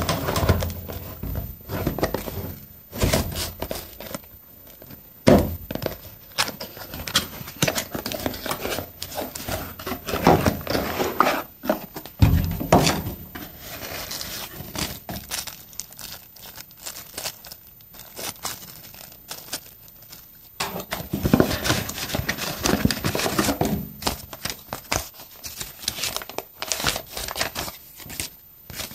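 Cardboard packaging being opened and handled by hand: flaps and paper crinkling and rustling, with irregular knocks and thumps against a wooden table.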